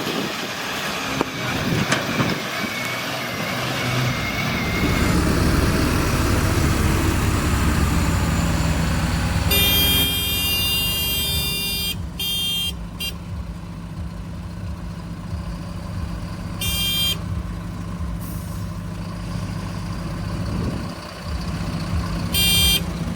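Diesel engine of a JCB 4DX backhoe loader running under load, working harder and deeper for a few seconds before settling to a steady run. Short high-pitched horn toots sound four times, the longest about ten seconds in.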